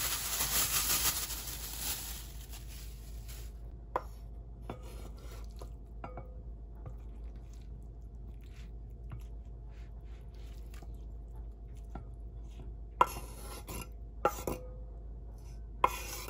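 Plastic bag crinkling and rustling for the first few seconds, then light clicks and a few sharp knocks as food is dropped into a glass mixing bowl and a wooden cutting board taps against it, the sharpest knocks near the end.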